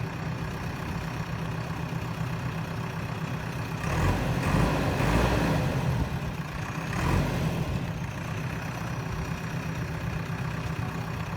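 JCB 3DX backhoe loader's diesel engine running steadily. It grows louder for about two seconds starting about four seconds in, and again briefly about seven seconds in.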